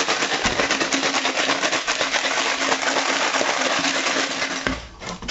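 Metal hand tools rattling and clattering against each other inside a closed container that is shaken hard, tumbling in rust-removing liquid to knock the rust off. The rattle stops briefly near the end.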